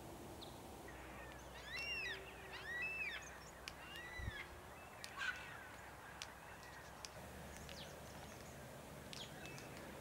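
Glossy black-cockatoo giving a series of short calls that rise and fall, several in quick succession starting a couple of seconds in, followed by a few sharp clicks.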